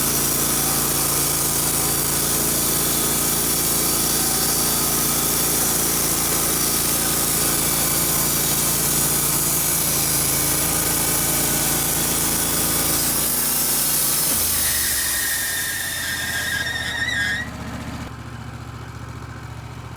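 Wood-Mizer LT15 Wide sawmill's band blade cutting through a pine log, with the engine running steadily under load and a loud hiss of sawing. About fifteen seconds in a high squeal sounds for a couple of seconds, then the cut ends and the engine settles to a quieter idle.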